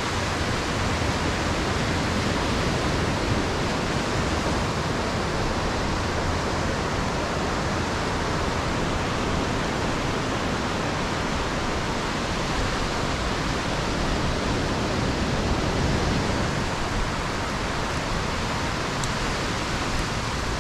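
Ocean surf breaking and washing up the beach, heard as a steady, even hiss.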